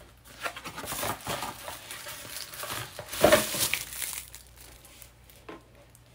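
Plastic wrapping and a cardboard box crinkling and rustling as a drinks tumbler is pulled out of its packaging, loudest a little past the middle and quieter near the end.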